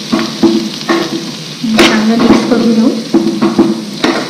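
Metal spoon stirring and scraping mashed potato filling around a non-stick frying pan, in short repeated scrapes with a couple of sharp knocks of the spoon against the pan, one about two seconds in and one near the end.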